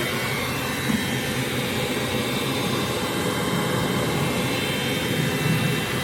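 A power tool running steadily with a loud, even whir and a faint high whine.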